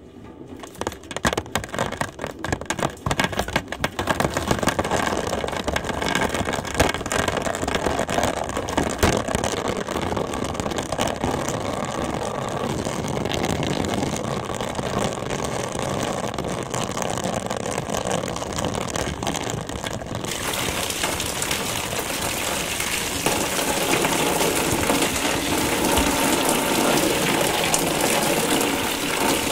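Water falling from a height into a vessel: separate drips at first, quickly thickening into a steady splashing stream that turns brighter and hissier about two-thirds of the way through.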